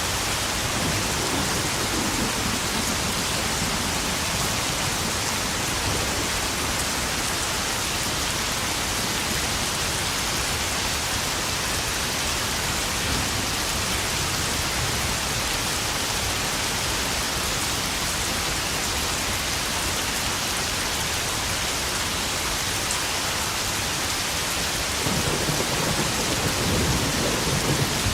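Heavy spring rain falling steadily and pattering on puddles, a dense even hiss. Thunder rumbles low about a second in, and a louder rumble rolls in near the end.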